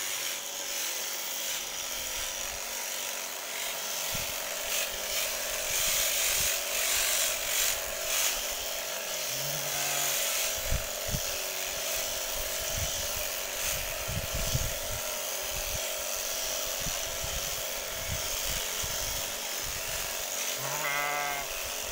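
Electric sheep-shearing clippers running with a steady buzz as wool is shorn off a sheep, with knocks from handling the animal in the middle.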